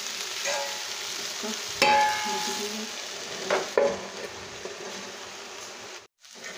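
Cluster-bean sabzi sizzling steadily on low heat in a steel kadai, with several ringing clinks and clangs of steel on steel, the loudest about two seconds in, as a steel plate is set over the kadai as a lid.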